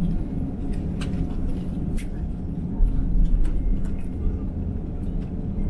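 Cabin noise inside an Airbus A350-900 taxiing after landing: a steady low rumble of the engines at idle and the wheels rolling on the taxiway, swelling briefly about three seconds in, with scattered light clicks and rattles.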